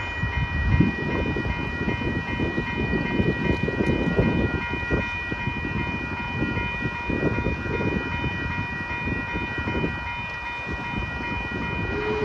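Railroad crossing electronic bells (WCH and NEG e-bells) ringing in a fast, steady repeating chime as the crossing signals flash and the gates lower. A gusty low rumble, like wind on the microphone, runs underneath.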